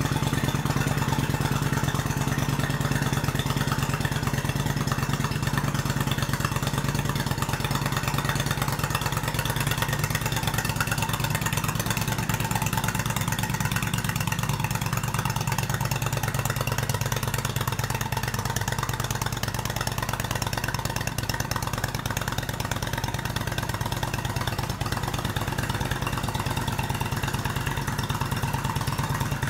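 1997 Kawasaki VN800 Vulcan's liquid-cooled V-twin idling steadily through debaffled Remus exhaust pipes.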